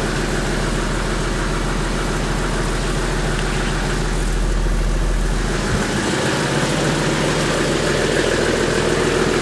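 Toyota Land Cruiser 80-series 1HD-T 4.2-litre straight-six turbo diesel idling steadily seconds after a cold start at about freezing with no glow-plug preheat. It is heard from inside the cab at first, then from outside beside the truck from about six seconds in, where the deep rumble drops and the clatter comes forward.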